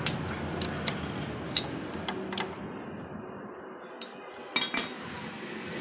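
Metal clinks of a tube box spanner and its tommy bar turning and seating the 8 mm bolts of a motorcycle's magneto cover: a few sharp separate clicks, with the loudest cluster near the end.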